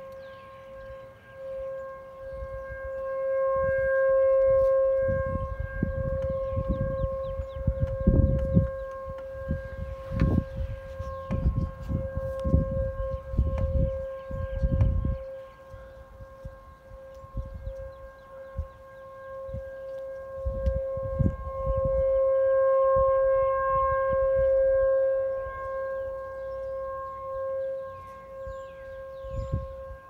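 Outdoor tornado warning siren sounding a steady, unwavering tone during a siren test. It swells loud twice, a few seconds in and again past the middle, and fades between. Irregular low rumbling buffets come and go under it.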